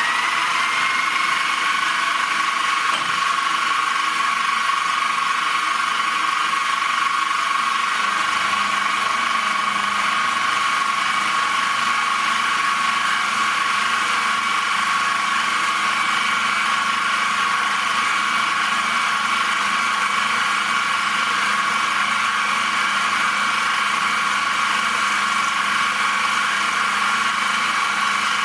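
Milling machine running steadily with a constant high-pitched whine while taking a 1.5 mm cut.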